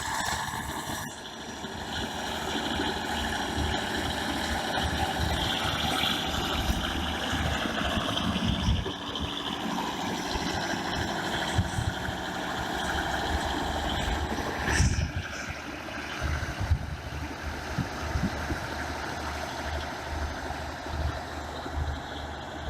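Diesel engine of a BEML BD155 bulldozer running steadily, with frequent irregular low knocks and a brief sharper noise about fifteen seconds in.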